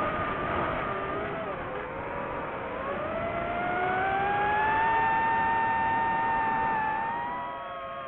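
DJI FPV drone's motors and propellers whining. The pitch dips, then climbs steadily as the throttle comes up, holds high, and eases off and gets quieter near the end.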